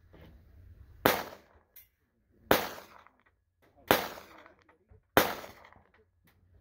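Four pistol shots fired at a slow, steady pace, about one every second and a half, each a sharp crack with a short echoing tail.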